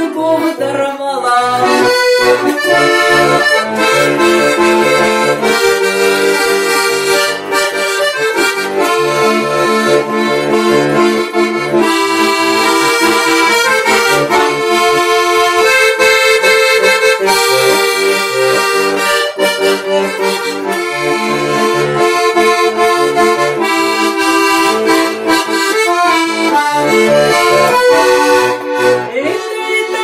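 Button accordion playing an instrumental passage of a cheerful song: a melody with chords over a bass line on a steady, even beat.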